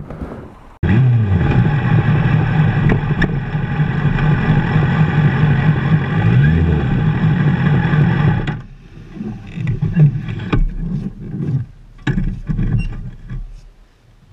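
Motorcycle engine running close by, its pitch dipping and rising a couple of times, then cut off about eight and a half seconds in; scattered knocks and rustles of handling follow.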